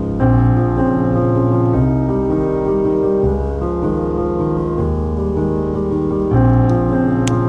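Background music: piano playing sustained chords, with new chords struck about a quarter second in and again near the end.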